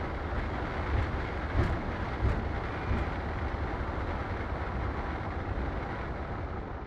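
Steady cockpit noise of a Boeing 777 taxiing after landing: a low rumble with a rush of air, and a few soft low thumps in the first three seconds.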